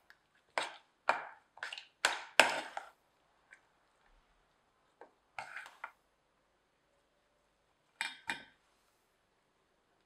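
Metal utensil knocking and scraping against a stainless steel saucepan while a thick starchy dough mixture is stirred: a run of sharp clinks over the first three seconds, a few more around five to six seconds, and two near eight seconds.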